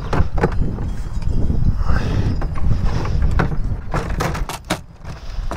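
A large wheeled plastic tank being shoved and scraped into a car trunk: a string of hollow knocks, clicks and creaks, several bunched together near the end, over a low rumble.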